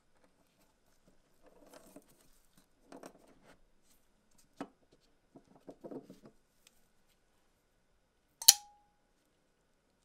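Soft handling rustles and a small click as a wooden box is opened and a folding knife is lifted out. Near the end comes a single loud, sharp snap with a brief metallic ring as the knife's blade is flicked open on its ceramic ball-bearing pivot and locks.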